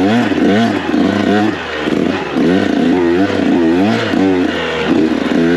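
Dirt bike engine revving up and down again and again as the throttle is worked over rough trail, its pitch rising and falling roughly once or twice a second over a steady rush of noise.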